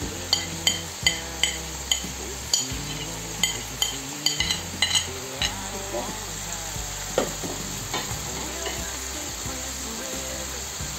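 Steel spoon clinking against a ceramic plate and pan rim as spices are scooped up and tipped in: about a dozen sharp clinks through the first five seconds or so, and one more a little later. Under them, diced chicken sizzles steadily in the frying pan.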